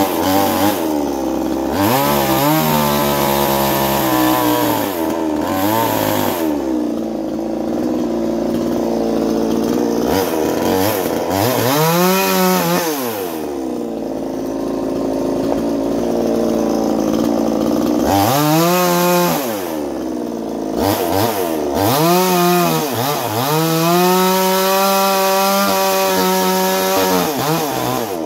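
Chinese 45cc ported chainsaw with a tattooed piston, running hard and cutting wood. Its engine pitch rises and falls repeatedly as it revs up and drops under load.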